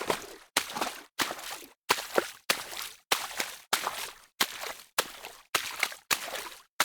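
Fast footsteps through shallow water: each step a splash and slosh that fades before the next, about one and a half steps a second.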